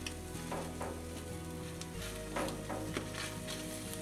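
Sockeye salmon fillets sizzling on a gas grill, with metal tongs clicking and scraping on the grate several times as the fillets are turned.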